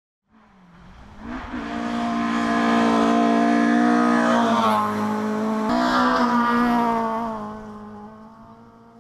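Toyota Starlet rally car's engine at full throttle, rising in pitch as the car approaches on the gravel stage. Its revs drop and pick up again a little past halfway, then the sound fades as it drives away.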